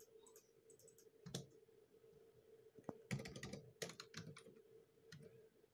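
Faint typing on a computer keyboard: a few scattered keystrokes, then a quick run of keys about three seconds in, over a faint steady hum.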